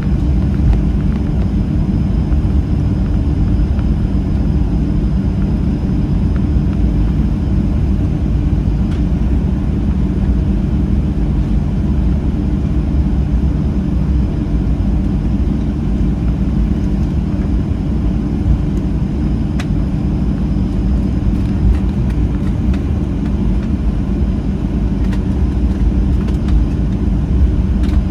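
Steady low rumble inside the cabin of a Boeing 737-700 taxiing on the ground, its CFM56-7B turbofan engines at idle, with a faint high whine above the rumble.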